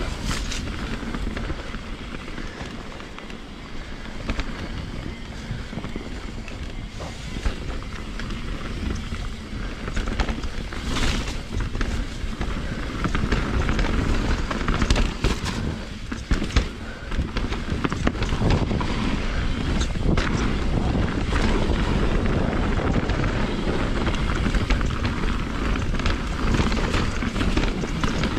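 2020 Rocky Mountain Instinct BC mountain bike descending a wet trail: steady wind rumble on the camera microphone and tyre noise over the dirt, with sharp knocks and rattles from the bike as it hits roots and rocks.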